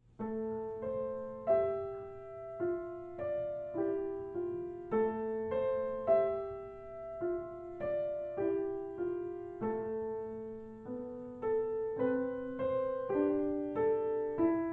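Background solo piano music: a slow, gentle melody of single notes and chords, each struck and left to ring.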